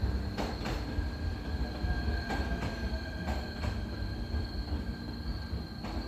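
E129 series electric train running, with a low rumble and its wheels clacking in pairs over the rail joints. Autumn insects keep up a steady high trill throughout.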